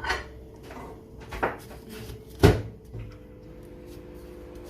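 A few sharp knocks and clatters on the kitchen counter as a red bell pepper is cleaned out on a cutting board: one at the start, one about a second and a half in, and the loudest about two and a half seconds in.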